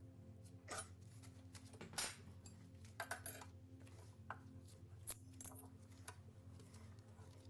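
Light metal clinks and clatters of tools and engine parts being handled during engine disassembly, a few separate knocks about a second apart over a low steady hum.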